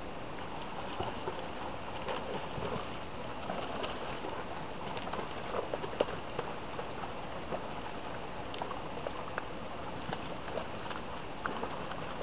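Steady rush of river water with scattered short clicks and splashes, the loudest about halfway through, as a hooked spring Chinook salmon is played on a rod.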